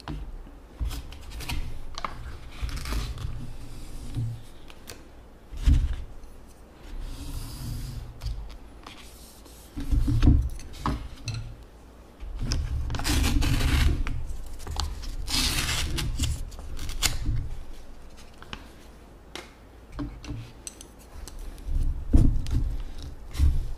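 Chopsticks clicking and scraping against bowls as noodles are stirred and lifted, with knocks and thumps of the bowls on the table. There are a couple of longer scraping stretches past the middle.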